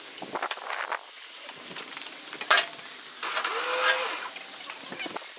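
Knocks and clanks from work at the steel bed of a car recovery truck while a car is loaded onto it. There is a sharp bang about two and a half seconds in, then about a second of rasping noise.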